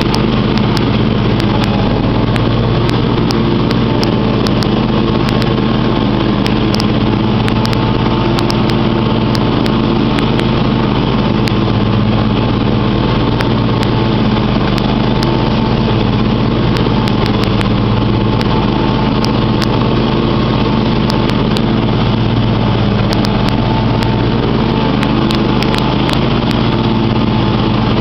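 John Deere X500 Multi-Terrain riding mower's 25 hp engine running at a steady speed while the mower drives across the lawn.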